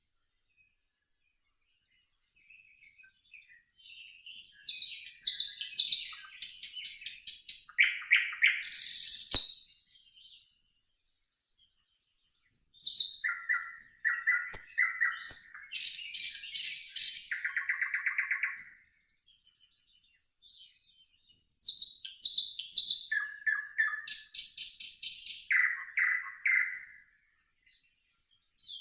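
Nightingale singing: three long song phrases of fast repeated notes, high whistles and lower rattling trills, separated by pauses of a couple of seconds.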